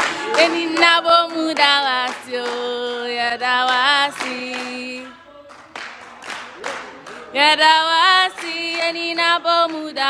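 Choir voices singing a worship song, with hands clapping along. The singing breaks off briefly about halfway through, then comes back in with long held notes.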